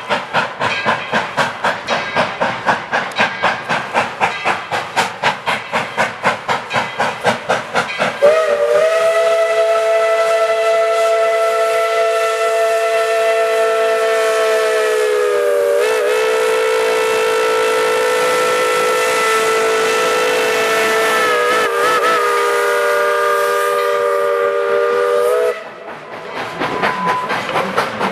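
Narrow-gauge steam locomotive chuffing at about four exhaust beats a second. About eight seconds in its whistle sounds one long chord of several notes at once, held for some seventeen seconds and wavering briefly twice, then cuts off, leaving quieter chuffing near the end.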